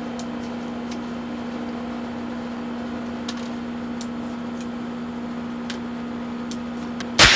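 A single sharp shot from a Heritage Rough Rider .22 rimfire single-action revolver near the end, over a steady low hum with a few faint ticks.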